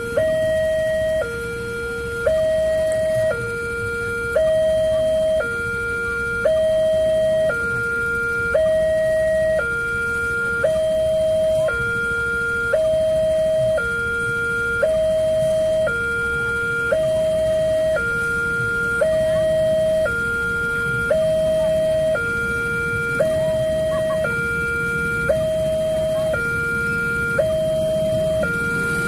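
Railway level-crossing warning alarm from the loudspeaker on the signal post, alternating steadily between a higher and a lower note, about a second each. It signals that a train is approaching and the crossing is closed.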